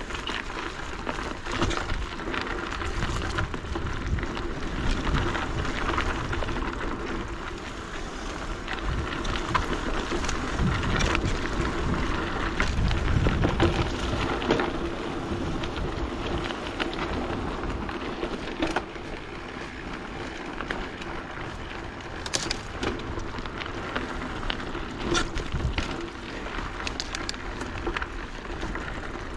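Mountain bike being ridden along a dirt bush track: a steady, rough rushing and rumbling from the tyres on the ground, with occasional sharp clicks and rattles.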